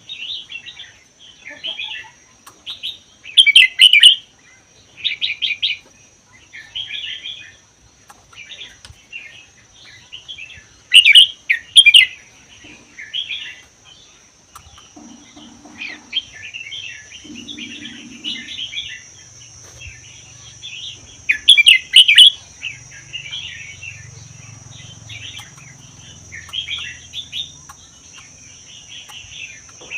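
Red-whiskered bulbul singing short, bubbly warbled phrases about once a second. Three louder phrases stand out, about 4, 11 and 22 seconds in.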